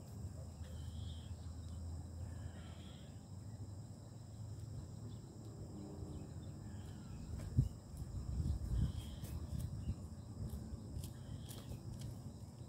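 Outdoor ambience: a steady high chorus of insects over a low rumble. A single sharp thump about seven and a half seconds in, followed by a second or two of rustling.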